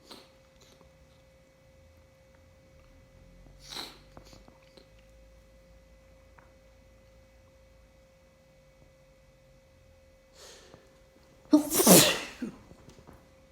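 A person sneezing once, loudly, near the end, part of a sneezing fit.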